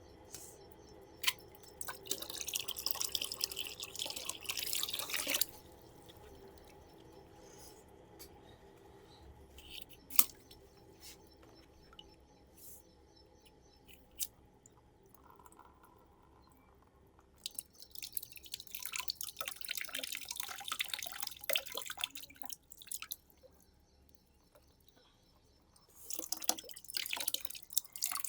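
Rubber balloons being squeezed and rubbed, crackling and squeaking in three long stretches, with a few single sharp clicks in between.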